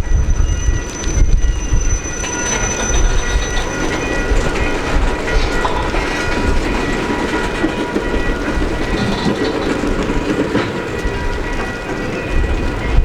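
Train rolling past: a steady low rumble of rail cars with wheel clicks over the rail joints, and high, steady ringing tones from wheels on the rail running through it.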